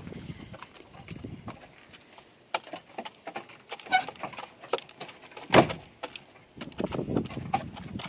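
White Shamo chickens pecking grain from a plastic feed bowl: an irregular run of sharp clicking taps of beaks on the plastic and the grain, with one louder knock about five and a half seconds in.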